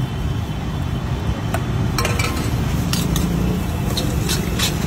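Steel utensils clinking and scraping against a stainless-steel bowl as bhel is mixed, the clinks coming faster near the end, over a steady low rumble of street traffic.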